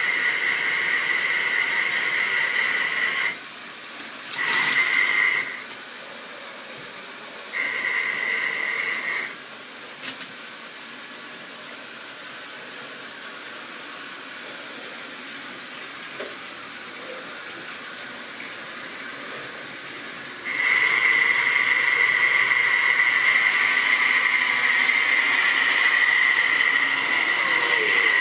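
Model railway locomotive's electric motor whining at a steady pitch with a hiss of wheels on track. It cuts out twice and returns in short bursts, then runs loud and steady for the last several seconds as a train of tank wagons passes close by.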